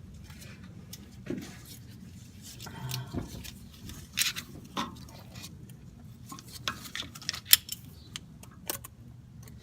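Scattered metallic clicks and clinks of hand tools on a metal CV boot clamp, with the sharpest click about three quarters of the way through.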